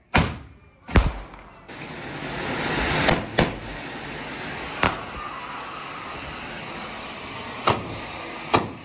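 Homemade multi-shot firework, three Roman-candle-style shot sticks joined together and set in a tube, burning with a steady hiss and firing sharp bangs at uneven intervals, seven in all. Two bangs come close together at the start, and the hiss swells a few seconds in.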